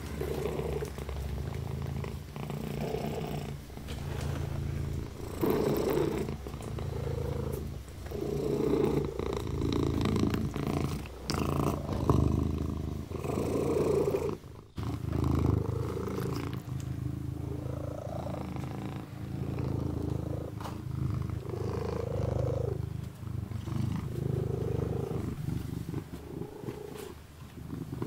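Kitten purring steadily, the purr swelling and fading with each breath, with one brief break about halfway through.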